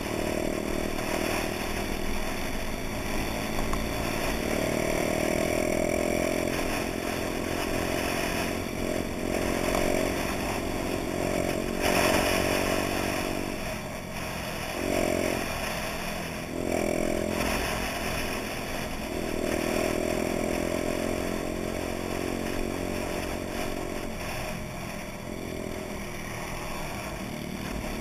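Honda Dax moped's small single-cylinder four-stroke engine under way, heard from the rider's seat. Its revs climb and drop back again and again through the ride.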